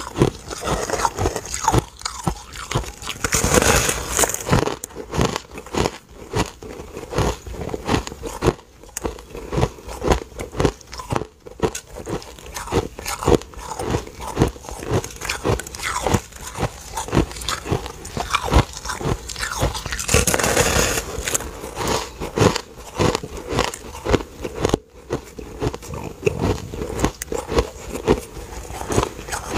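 Close-up biting and chewing of a large chunk of white, snowy-textured ice: dense, continuous crunching and crackling. It grows louder in two big bites, about three seconds in and again around twenty seconds in.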